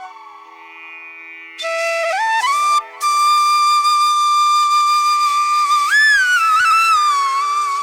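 Background instrumental music: a flute-like melody of long held, gliding notes over a steady drone. It is faint at first and comes back in full about a second and a half in.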